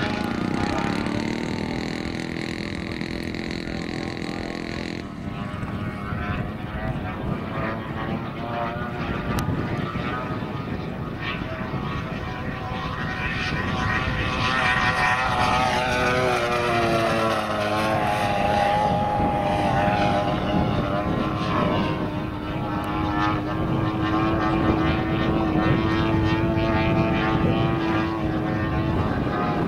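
A large-scale RC Spitfire's 3W 75cc two-stroke petrol engine running at flying speed through a scale exhaust, with a propeller drone. Its note rises and falls as the plane passes. About halfway through the pitch sweeps down on a pass, then settles into a steady drone.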